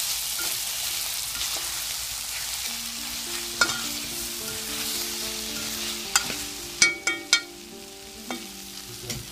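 Sausage and onions frying in butter and oil in a pot: a steady sizzle, with a utensil knocking against the pot several times in the second half. A simple tune of held notes comes in about three seconds in.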